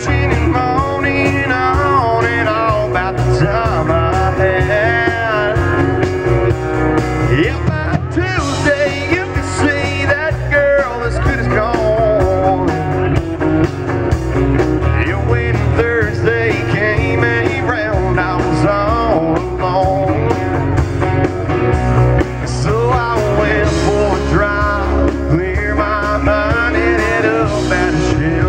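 Live band playing country rock: acoustic guitar, bass guitar and drums, loud and continuous.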